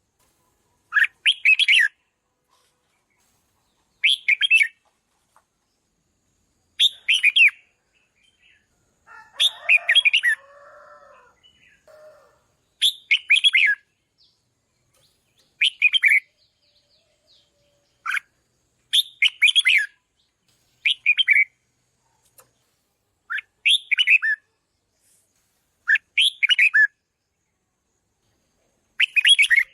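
Red-whiskered bulbul singing short, loud, sweeping whistled phrases, one about every two to three seconds. About nine seconds in, a lower, longer chattering call sounds for roughly three seconds.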